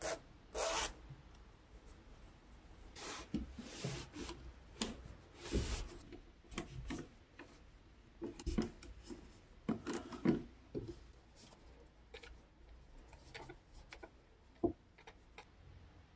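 Hands handling a ball-jointed doll and its wrappings: irregular rubbing and rustling swishes, with a single sharp click near the end.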